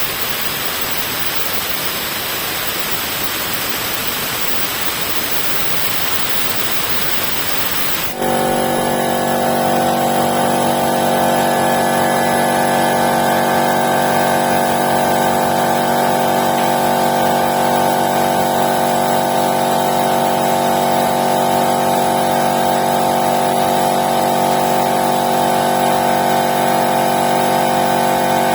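Compressed air hissing steadily out of the air compressor as its tank pressure is bled off. About eight seconds in, the 2.2 kW electric motor starts up and the piston compressor runs steadily under load. This is a clean restart after its stuck stator-winding switch-over relay was cleaned.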